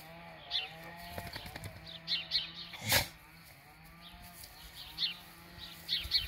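A dog whining in a wavering pitch, with small birds chirping and a low steady hum; a single sharp snap about three seconds in.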